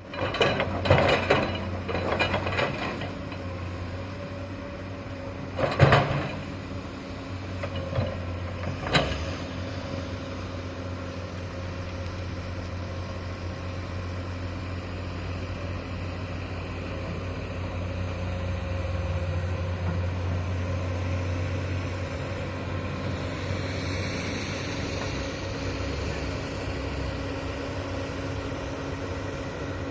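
Heavy construction machine's diesel engine running steadily. There is a burst of clattering knocks in the first few seconds, then two loud bangs, about six and nine seconds in.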